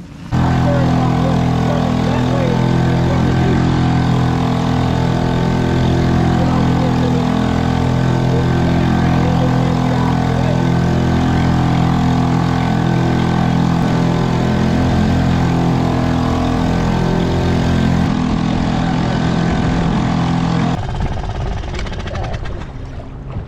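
A small fishing boat's motor running steadily at constant speed. It starts abruptly and drops away suddenly near the end.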